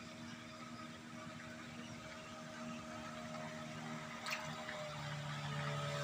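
Boat engine running with a steady hum that grows louder, a deeper drone setting in near the end, and a single sharp click about four seconds in.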